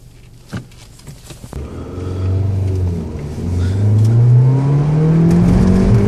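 Honda Civic 1.8 i-VTEC four-cylinder engine pulling away hard from a standstill, heard inside the cabin. It is quiet for about a second and a half, then the engine note comes in and climbs steadily in pitch as the revs rise, easing briefly around three seconds in.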